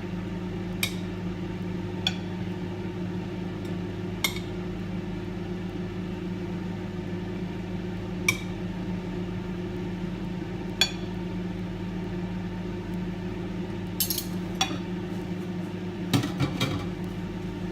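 Microwave oven running with a steady hum, poaching eggs in water. Over it, a few sharp clinks of crockery and cutlery, bunched together near the end.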